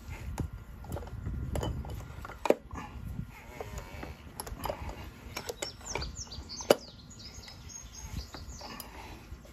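Ratchet and oil filter cap socket clicking and knocking irregularly while screwing the oil filter housing cap down on the engine. Two sharper knocks stand out, one about two and a half seconds in and one near seven seconds.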